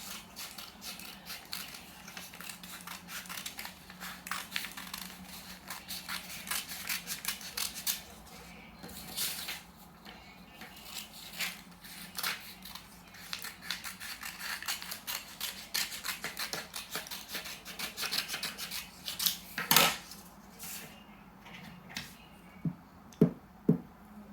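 Coloured paper rustling and crinkling in irregular crackles as paper strips are handled and folded over one another again and again. There is one louder crackle a little before the end.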